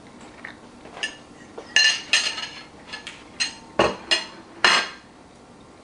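Cutlery clinking against a plate: about seven sharp, ringing clinks spread over a few seconds, the loudest about two seconds in and near the end.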